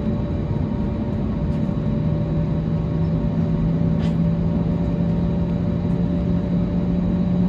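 Cabin drone of an Airbus A320neo-family airliner: a steady engine rumble and hum heard from inside the cabin, with one low tone rising slowly and slightly from about a second and a half in.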